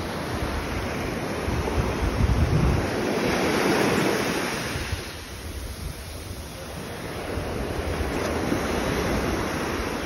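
Small Atlantic surf washing up and draining back over a sandy beach. It swells a couple of seconds in, eases off around the middle, then builds again, with wind gusting on the microphone at times.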